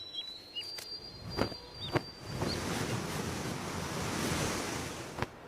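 Outdoor nature ambience: a few short high chirps and light clicks, then a swell of wind-like noise that builds about two and a half seconds in and fades near the end.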